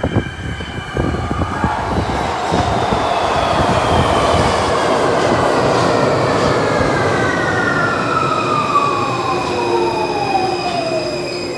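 London Underground Victoria line 2009 Stock train running into the platform and braking: wheels rumbling and knocking on the rails, then an electric whine that falls steadily in pitch as the train slows nearly to a stop.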